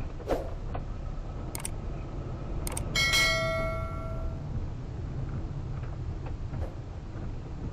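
A few sharp mouse-click sound effects, then a notification-bell ding about three seconds in that rings out for about a second and a half: the sound effect of a subscribe-button animation. Underneath, the low steady rumble of a car cabin on the move.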